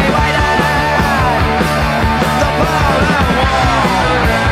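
Loud punk rock song playing: a full band with a steady drum beat and a high lead line sliding up and down in pitch over it.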